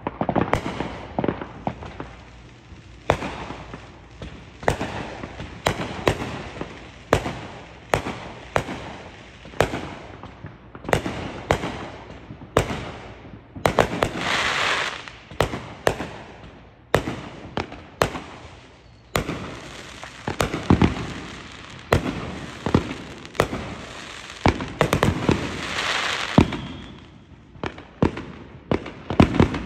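Aerial fireworks going off in a steady barrage of sharp bangs, about one or two a second, with a stretch of dense crackling about halfway through and another near the end.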